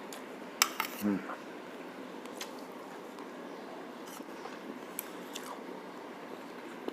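Eating sounds: cutlery clinking against a plate in a few scattered sharp clicks, the loudest about half a second in, with a short low vocal sound falling in pitch just after a second in.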